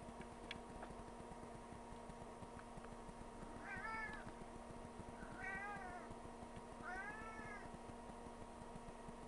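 A cat meowing three times, the calls coming at about four, five and a half and seven seconds in, each rising then falling in pitch, over a steady low hum.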